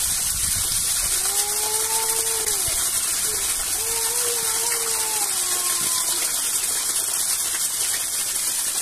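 Steady rushing water noise, a constant hiss. Two long, slightly arching tones rise above it, one about a second in and one in the middle.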